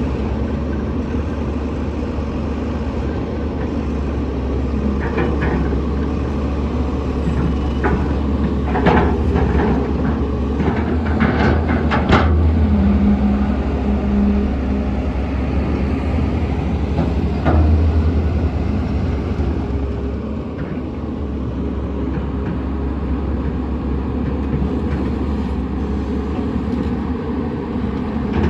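Heavy diesel engine of a Sany 215 excavator running steadily under work, with a run of sharp metallic clanks and knocks a few seconds in and another clank about two-thirds through.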